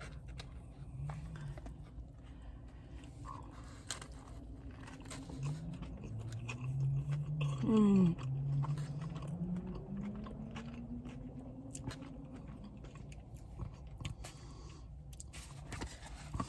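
A person biting into and chewing a mouthful of fried chicken sandwich, with small crunches, and a low drawn-out hum of appreciation in the middle.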